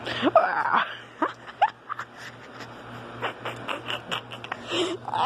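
A small dog play-biting and scuffling at a person's hand: rustling of fur and bedding and scattered clicks, with a few short rising squeaky vocal sounds in the first two seconds.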